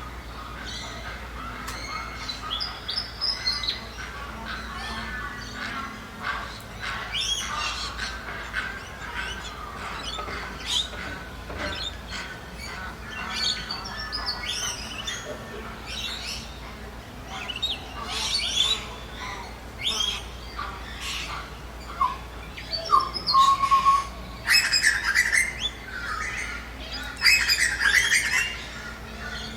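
Several birds calling and singing together in a forest: many short chirps and whistled phrases overlapping, growing denser and louder near the end.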